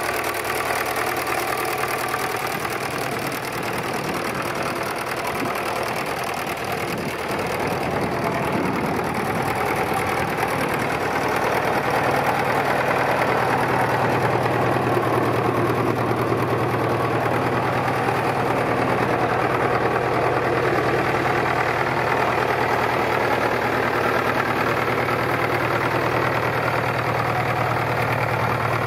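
1954 Fordson Major's four-cylinder diesel engine idling steadily, its low drone getting stronger a little before halfway.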